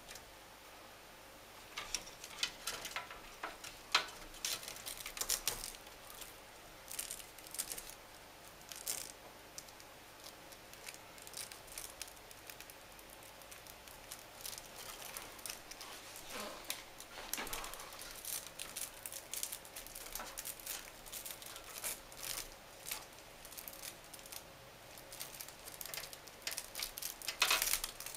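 Irregular rustling, scraping and small clicks of computer cables and Velcro cable ties being handled and fastened inside a PC case.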